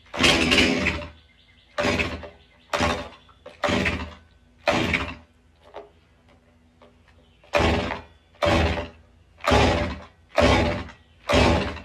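STIHL MS 291 two-stroke chainsaw being pull-started: ten yanks of the recoil starter, five then a pause then five more, each a short whirr of the cranking engine that falls in pitch without catching.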